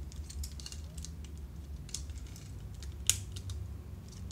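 Plastic parts of a Transformers action figure clicking and rattling as they are twisted and pushed into place, with one sharp click about three seconds in, over a steady low hum.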